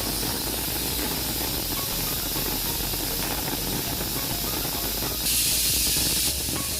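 Pressure cooker with biryani inside venting steam through its whistle valve as a steady hiss, louder for about a second near the end.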